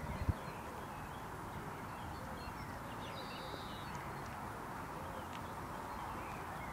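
Outdoor ambience: a steady low rumble with birds chirping now and then, and a single thump just after the start.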